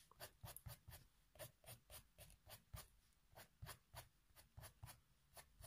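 Faint, quick strokes of a Faber-Castell Polychromos coloured pencil on paper, about four a second, as it shades in the lines of the hair.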